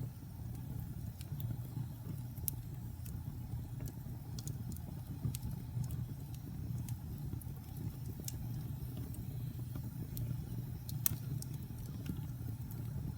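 Wood fire burning in a fireplace: a steady low rumble of the flames with scattered sharp crackles and pops, the loudest about eleven seconds in.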